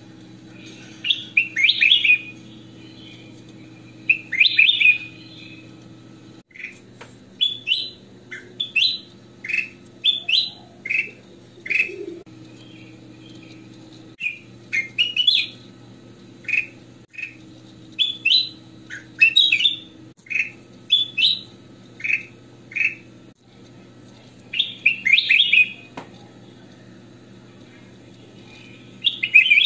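Ruby-throated bulbul (kutilang emas) singing: short phrases of quick, bright chirping notes, one every second or two, over a faint steady low hum.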